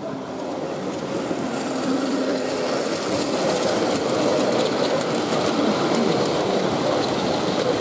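Model train running along the track of a layout, getting louder over the first few seconds as it comes nearer, with faint light clicking of the wheels on the rails.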